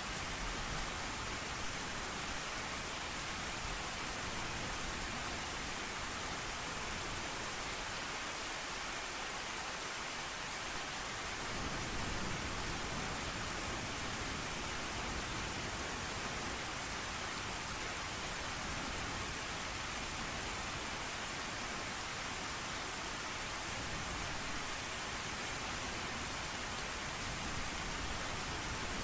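Steady heavy rain falling, a dense, even hiss, with its low end growing fuller about twelve seconds in.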